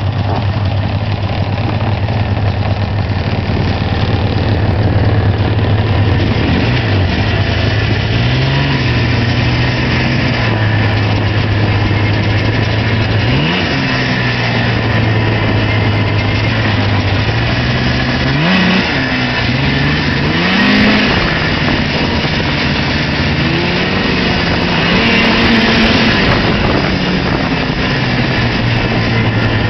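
Old Arctic Cat Pantera snowmobile's two-stroke engine running while the sled is ridden over snow. Its pitch rises and falls several times as the throttle is opened and eased off.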